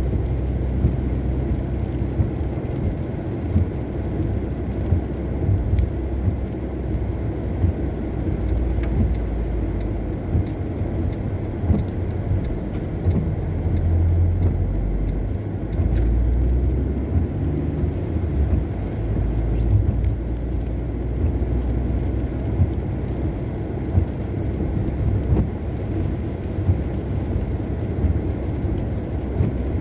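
Car driving on rain-wet roads: a steady low rumble of engine and tyres. In the middle it is joined by a run of light ticks, about two a second, that lasts several seconds.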